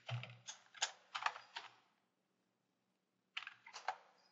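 Typing on a computer keyboard: a quick run of keystrokes over the first two seconds, then a shorter run about three and a half seconds in.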